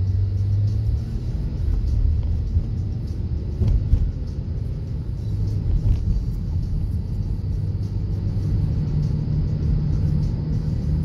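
Low engine and road rumble of a car heard from inside its cabin as it pulls away from a stop and gets up to speed.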